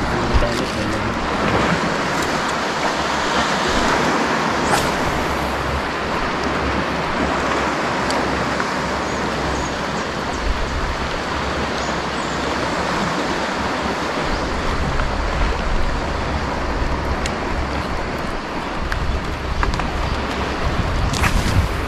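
Steady rushing of wind and water around a small boat, with wind buffeting the microphone in low gusts and a few faint clicks.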